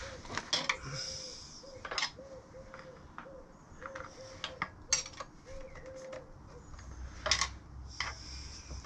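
Scattered light metallic clicks and knocks of brake pads being worked into a motorcycle brake caliper, with the pads hard to seat.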